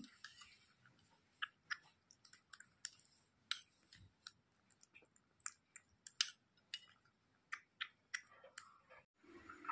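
Kitten lapping milk from a steel spoon: faint, irregular wet clicks of its tongue and mouth, a few each second.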